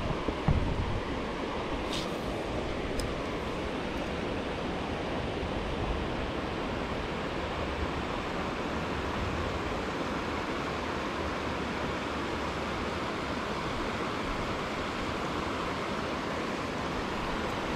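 Steady rush of river water pouring over small falls and rapids. A brief low rumble on the microphone about half a second in.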